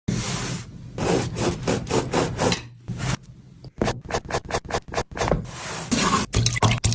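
Sandwich being made: a knife scraping over bread in repeated rhythmic strokes, then a quick run of sharp taps, like chopping on a board, and more scraping near the end.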